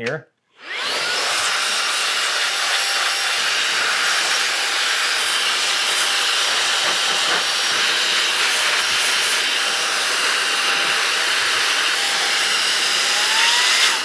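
Air blow gun blasting a steady hiss of air to blow built-up dust off computer parts, starting about half a second in.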